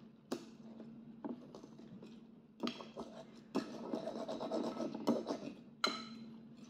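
Metal fork clinking and scraping against a ceramic bowl, with a few sharp clicks and a longer stretch of scraping in the middle.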